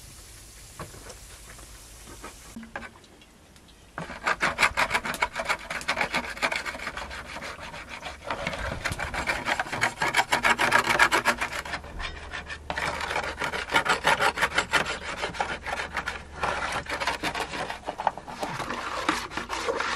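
A metal spoon scraping rapidly around the inside of a plastic basin with a little watery residue in it: a quick rasping scrape repeated several times a second, starting about four seconds in. Before that, a faint steady hiss of frying in a pan.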